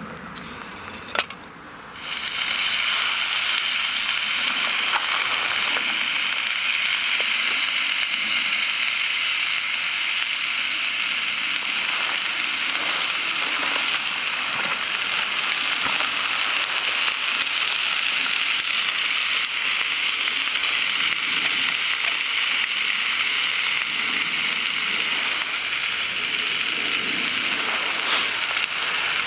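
A sharp click, then about two seconds in a loud, steady sizzling hiss starts abruptly and keeps on without a break.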